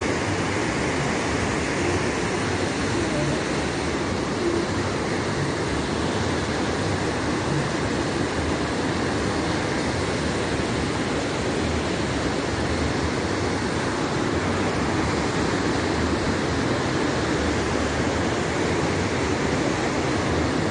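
Fast muddy floodwater rushing down a street in a flash flood: a steady, unbroken rushing noise of the torrent.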